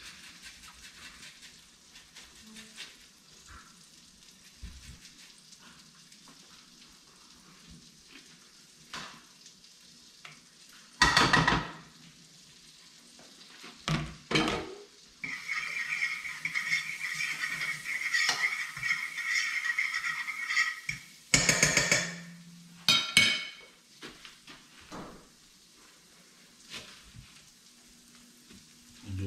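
Butter and garlic sizzling in a frying pan, broken by a few loud clatters of pans and utensils. In the middle, water runs into the kitchen sink for about five seconds.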